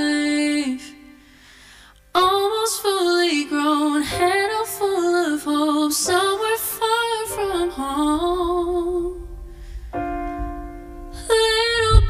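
A female vocalist sings a slow, ornamented melody over a soft electric keyboard, with a short pause about a second in and a long held note near the end.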